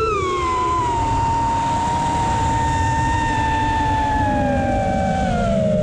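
Brushless motors and 5.1-inch three-blade propellers of a 6S FPV freestyle quadcopter (Hyperlite 2207.5 1922kv motors) whining. The pitch drops sharply at the start and then slides slowly lower as the throttle eases off and the quad slows after a speed run. Wind rumbles on the microphone throughout.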